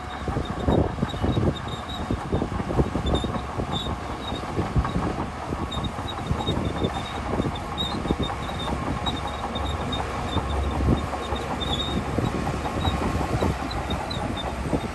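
Crawler bulldozer working: its diesel engine runs steadily under a dense, irregular run of clanks and knocks from the steel tracks, with faint high squeaks.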